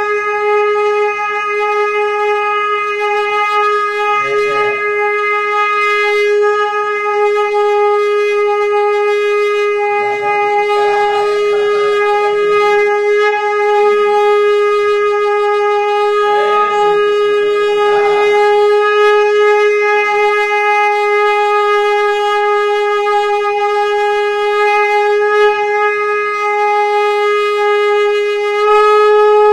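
Conch shell (shankh) blown in one long unbroken note, steady in pitch and rich in overtones. Fainter rough noises sound underneath at a few moments.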